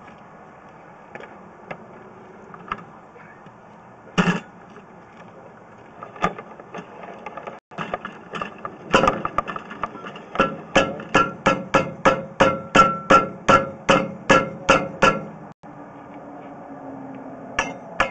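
Hammer blows: a few single knocks, then a fast, even run of strikes, about three a second, with a slight ring. A second run starts near the end.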